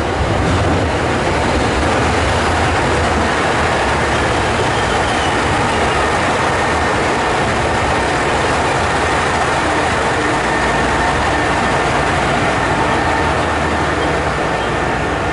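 JR West KiHa 189 series diesel express train running past along the platform: steady diesel engine rumble and wheel noise on the rails, easing slightly near the end.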